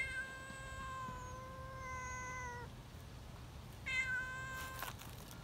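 Young cat giving two long, shrill meows held at a steady pitch: the first lasts nearly three seconds, the second, about a second long, comes near the middle.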